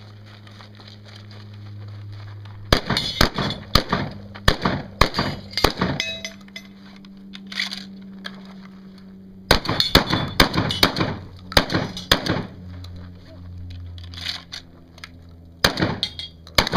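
Three bursts of rapid clinking and clattering, like hard objects being handled and knocked together, about 3 seconds in, about 10 seconds in, and near the end, over a steady low hum.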